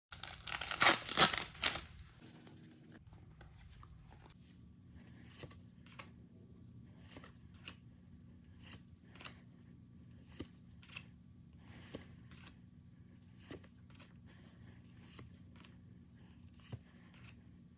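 A Pokémon booster pack's foil wrapper tearing open with a loud rustle, then trading cards flicked off the stack one by one, a soft click every second or so.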